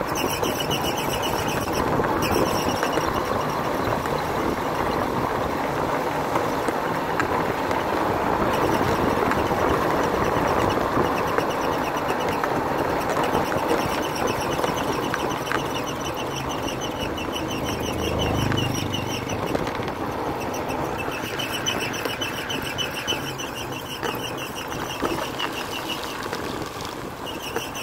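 Motorbike engine running under way, with steady road and wind noise, heard from the pillion seat. A high pulsing buzz comes and goes over it.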